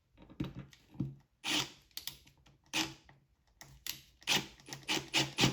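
A screw being driven into a board: an irregular run of short clicks and grinding bursts that grow louder towards the end.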